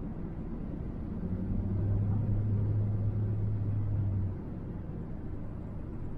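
Road and engine rumble of a moving van heard from inside the cabin, with a low steady drone that swells from about a second in and drops away after about four seconds.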